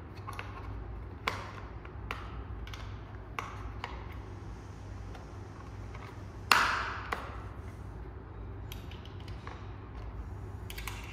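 Small metal hand tool clicking and tapping against the scooter's front fender screws and fork as the screws are tightened, a few scattered clicks, with one louder metallic ping that rings briefly about six and a half seconds in.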